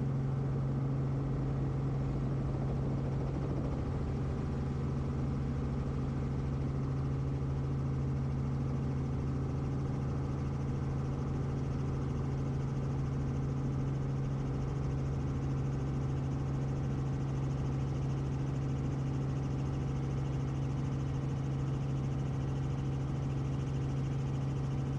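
Robinson R44 Clipper II helicopter's piston engine and rotors running steadily during takeoff and climb-out, heard from inside the cabin as an even, unchanging drone.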